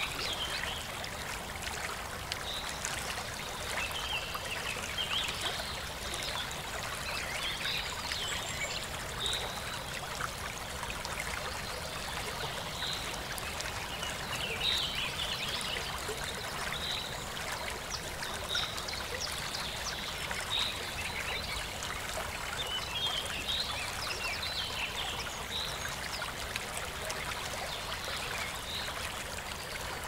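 Stream water running steadily over rocks, with short high calls from a small animal recurring every second or two.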